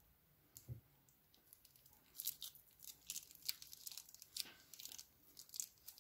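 Thin plastic piping bag crinkling and crackling as hands squeeze and pull it apart, in quick irregular crackles from about two seconds in. A soft low thump comes earlier, under a second in.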